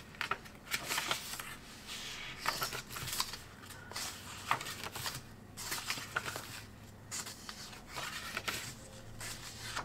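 Sketchbook pages being turned and smoothed by hand: irregular paper rustles with small crisp clicks and taps.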